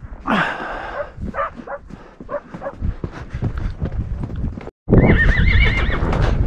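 An equine whinnying: one loud call within the first second, then several shorter calls over the next two seconds. After a brief dropout, a quavering whinny comes about five seconds in, over hoofbeats and wind rumble on the microphone.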